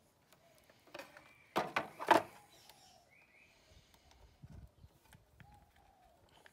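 Handling noise as batteries and their wires are set into a scooter's plastic battery tray: a few clicks, then a cluster of sharp knocks and clunks about two seconds in, followed by quieter scattered clicks.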